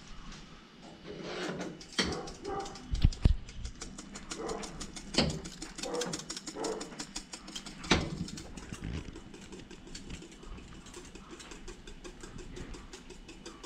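Wire whisk beating thickening cornmeal polenta in a small metal saucepan: a fast, continuous run of scraping clicks, with a few louder knocks of the whisk against the pan.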